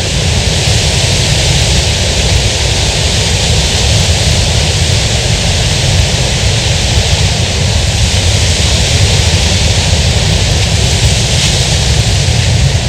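Loud, steady rush of a waterfall, with a deep rumble under a hiss of spray and no break.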